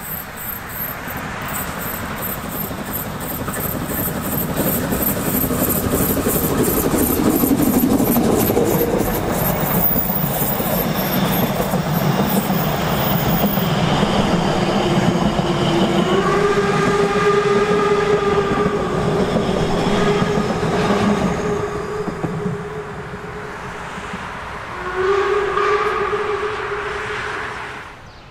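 Narrow-gauge steam train approaching and running past, growing louder over the first seconds, its coach wheels clicking quickly over the rails. Then the locomotive's steam whistle blows one long blast of about five seconds and, a few seconds later, a shorter one.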